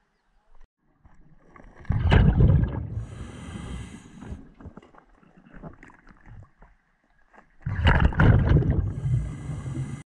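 Scuba diver breathing through a regulator underwater: a loud bubbling rush of exhaled air about two seconds in and again near the end, each followed by the hiss of the next breath drawn through the regulator.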